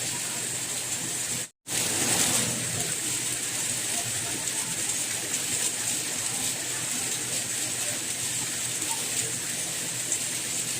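Steady rain, a constant even hiss, cut by a brief drop to silence about one and a half seconds in before it resumes.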